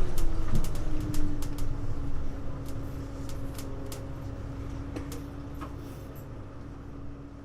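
Hino U-HU2MLAA city bus heard from inside, its drivetrain tone falling as it slows to a stop, then settling into a steady hum over a low rumble. Scattered light clicks sound through it, and the whole sound fades away toward the end.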